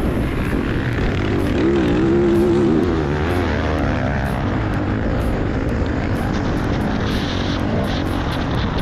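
Motocross bike engine running under throttle, heard up close, with the revs rising and falling between about one and a half and three seconds in, then pulling steadily.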